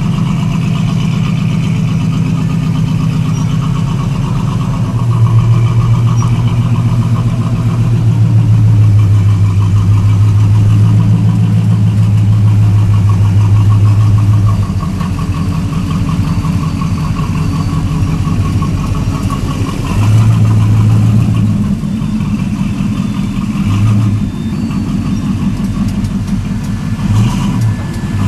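Lifted square-body Chevrolet pickup's engine running as the truck crawls off-road through a deep rut. The throttle is opened in bursts: one long stretch from about five seconds in to about halfway, then shorter ones later on.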